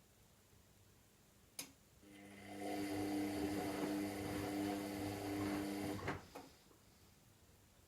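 Washing machine clicks, then its motor hums steadily for about four seconds before cutting off, followed by a smaller click.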